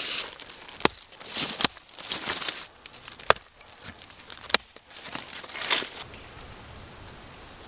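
Movement through dry dead wood and forest litter: rustling and crunching, with four sharp cracks of dry twigs or branches snapping.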